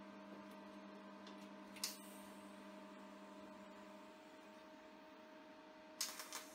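Quiet, steady electrical hum from a TIG welding set, with one sharp click about two seconds in. Near the end comes a brief crackle as the TIG arc strikes on the steel.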